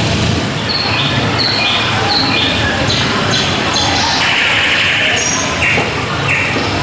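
A performance soundtrack played loudly over a hall's loudspeakers: a string of short high electronic tones, about one every 0.7 s and stepping in pitch, over a dense, steady low rumble, with the echo of a large hall.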